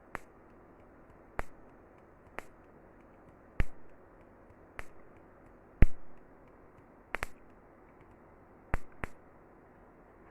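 Fuel injectors on a bench-tested harness clicking as the Honda ECU pulses them: sharp single clicks about once a second at uneven spacing, with a quick double click about seven seconds in.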